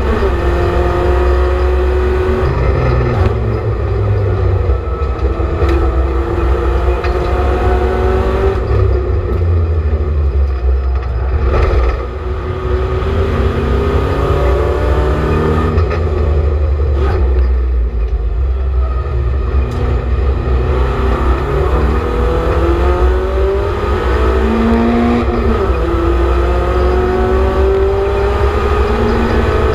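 BMW Compact Cup race car's engine at full racing pace, heard from inside the stripped cabin. Its pitch climbs repeatedly under acceleration and drops back at gear changes and under braking for corners, over a steady low rumble of road and drivetrain noise.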